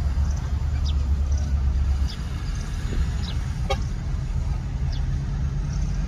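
Heavy diesel dump truck engine running with a deep, steady rumble that eases somewhat about two seconds in, while the truck tips its load and lowers its bed. A few short high chirps sound over it.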